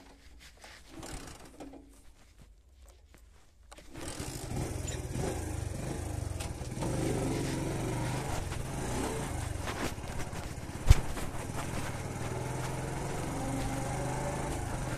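Motorcycle engine starting up about four seconds in, then running steadily as the bike rides over dirt ground. There is a single sharp knock about eleven seconds in.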